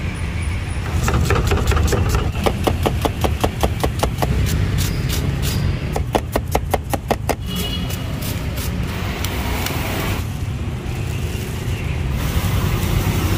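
Cleaver chopping cucumber and carrot on a wooden chopping block: quick, regular knocks of about five a second that stop about seven and a half seconds in. Steady traffic rumble runs underneath.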